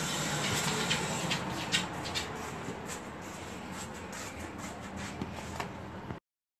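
Handling noise as a takeaway food box is carried and put down: a steady rustle with scattered light clicks and taps. The sound cuts off suddenly near the end.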